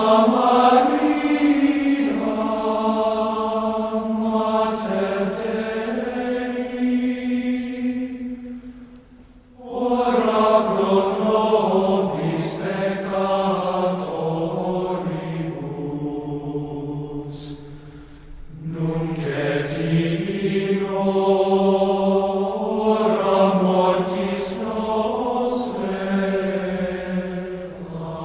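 Slow vocal chant with no instruments: three long sung phrases of about nine seconds each, each moving in steps through a few held notes, with a brief pause between phrases.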